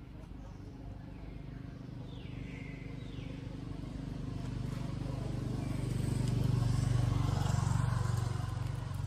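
A motor vehicle's engine hum, low and steady, growing louder to a peak about two-thirds of the way through and then easing off, as a vehicle passes by.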